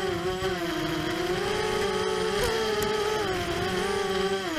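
ImmersionRC Vortex 250 Pro racing quadcopter's brushless motors and propellers whining, heard from on board, the pitch rising and falling with the throttle, with a sharp dip and recovery near the end as the throttle is briefly cut.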